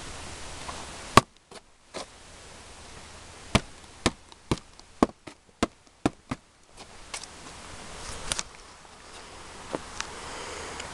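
A series of about a dozen sharp knocks or cracks at irregular intervals over a steady background hiss. The loudest comes about a second in, and a quicker run follows in the middle.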